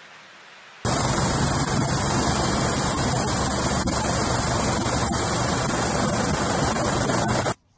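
Helicopter turbine and rotor noise heard from aboard: a loud, steady rush with a high steady whine, starting abruptly about a second in and cutting off just before the end.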